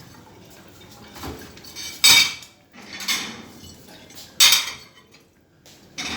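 Dishes and cutlery clattering as they are washed: a handful of separate clinks and knocks, with a quiet stretch near the end.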